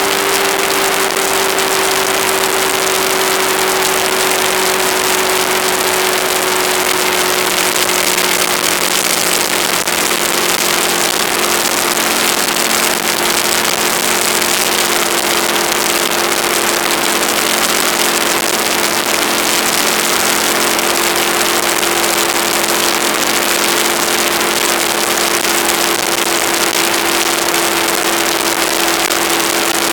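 Aprilia ETV1000 Caponord's V-twin engine running at a steady cruise, its pitch easing slowly lower, under a heavy rush of wind on the action camera's microphone.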